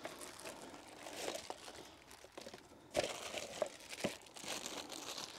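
Plastic packaging crinkling and rustling as it is handled, with a couple of sharp clicks from parts being knocked.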